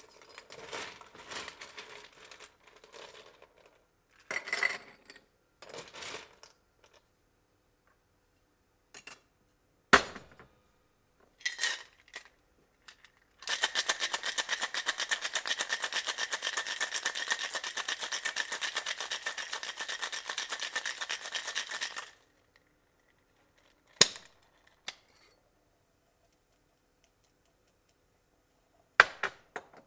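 Ice and glassware clinking and rattling, then for about eight seconds a cocktail shaker shaken hard with ice, a fast even rattle that stops suddenly. A few sharp single clinks follow near the end.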